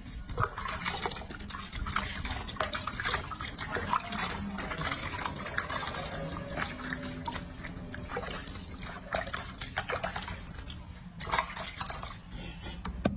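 Water sloshing and splashing in a sink basin as hands scoop and rub water over a baby monkey, a steady run of small splashes and drips.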